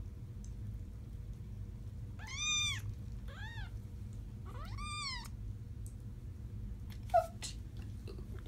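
Three-week-old kitten mewing three times, thin high cries that each rise and fall in pitch, the first the loudest. A single short sharp knock comes near the end.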